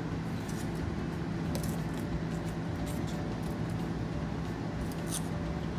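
A plastic scoop scraping in a can of powdered infant formula and powder being tipped into a plastic baby bottle, heard as scattered soft scrapes and light clicks. A steady low hum runs underneath.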